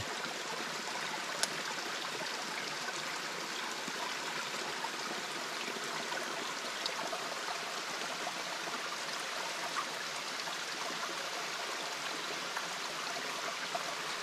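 Shallow rocky forest stream running over stones, a steady rushing trickle. A single sharp click about a second and a half in.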